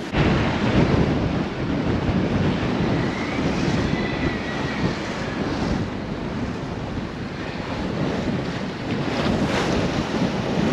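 Wind buffeting the microphone over water rushing past the hull of a sailboat moving under sail. It starts abruptly and stays loud and steady.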